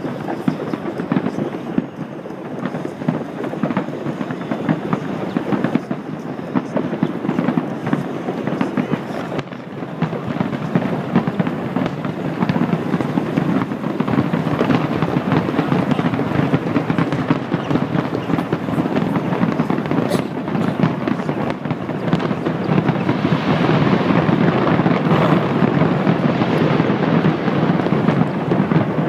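A dense, continuous barrage of fireworks bursting and crackling, with no pauses between the bangs. It grows louder about halfway through and again near the end.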